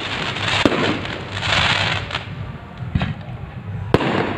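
Fireworks display: four sharp bangs of shells bursting overhead, with a dense crackle of sparks between them, thickest in the first couple of seconds.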